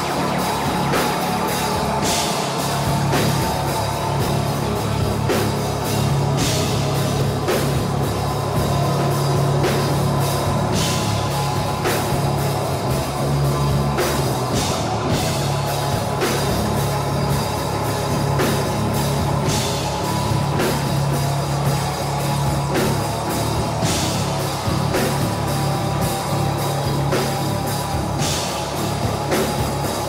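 Rock band playing live: a loud, dense wall of drum kit, heavy bass and keyboards, with cymbal crashes every few seconds.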